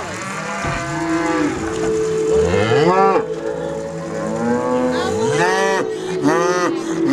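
A herd of cattle mooing, many calls one after another and overlapping, stirred up as they wait for their feed of whiskey mash.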